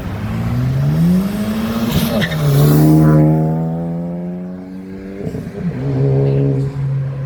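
A car accelerating hard past. Its engine note climbs through one gear and drops sharply at an upshift about two seconds in, and the car is loudest as it passes a second later. Near the end there is a brief break in the note and then a steady lower note.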